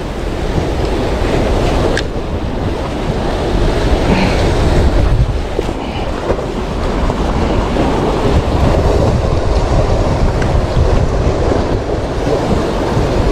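Wind buffeting the microphone with a constant low rumble, mixed with sea waves washing in.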